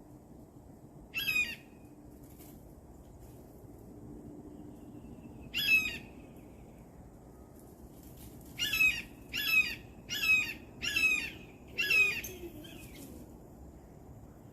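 A bird giving short, harsh calls: one about a second in, another near the middle, then five in a quick row toward the end.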